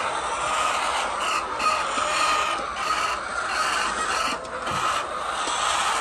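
Steady din of a large flock of chickens clucking and chattering together.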